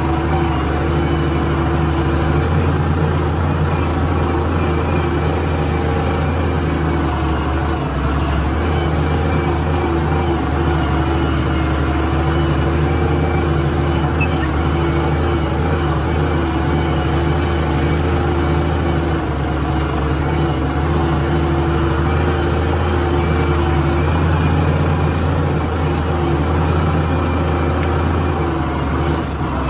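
Tractor engine running steadily at an even pitch, heard close up from the driver's seat.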